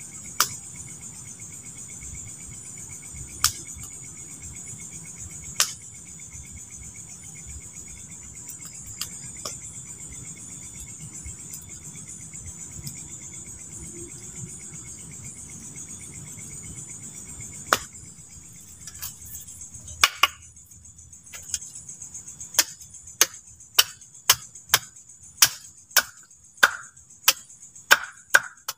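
Crickets chirring steadily over the low crackle of a campfire, with a few sharp pops. About two-thirds through, a regular run of loud knocks on wood begins, about two a second, as a stick is worked by hand.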